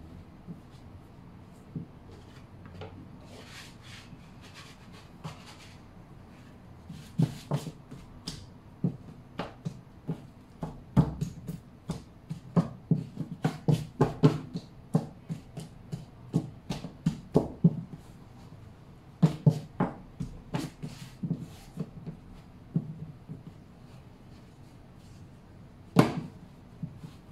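Hands pressing and patting wholemeal bread dough flat on a silicone mat over a wooden counter, giving a run of irregular soft knocks and thumps. They come sparsely at first, crowd together through the middle, and end with one sharper knock near the end.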